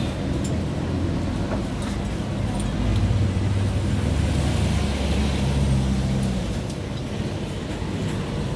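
A motor vehicle's engine running, growing louder about three seconds in and easing off after about six and a half seconds.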